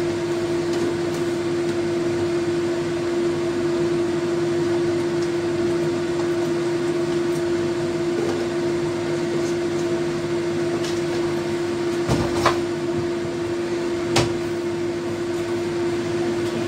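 Steady hum of a running kitchen fan motor, one even drone over a broad whoosh. A few light clicks come about three-quarters of the way through.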